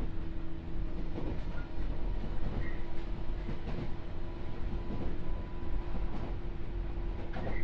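Running noise heard inside a JR 201-series electric train car: a continuous low rumble of wheels on rail with a steady hum, broken by occasional clacks as the wheels cross rail joints.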